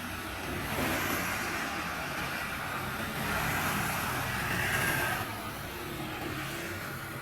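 Fast motorway traffic: cars and trucks passing with tyre and engine noise, swelling as vehicles go by about a second in and again from about three to five seconds.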